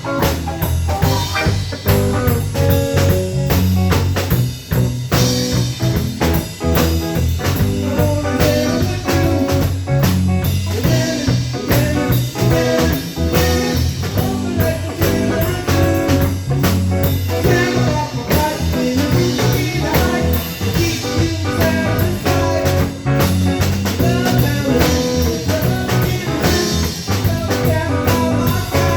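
Live band jamming in a blues style, with a drum kit keeping a steady beat under guitar.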